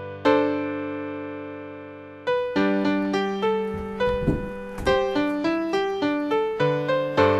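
Background piano music: a chord struck just after the start rings and fades for about two seconds, then a steady run of single notes follows at about three a second.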